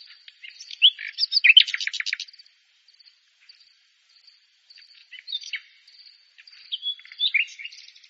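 Common nightingale singing: a loud phrase about a second in that runs into a fast series of repeated notes, then two shorter, quieter phrases of whistles and trills in the second half.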